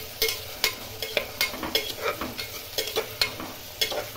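Onions, green chillies and whole spices sizzling in hot oil and ghee in an aluminium pressure cooker, stirred with a spatula that scrapes and knocks against the pot about three times a second.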